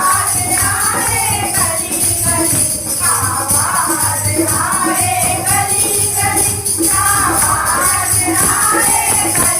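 Hindu devotional bhajan: voices singing a melody over steady jingling percussion and a regular beat.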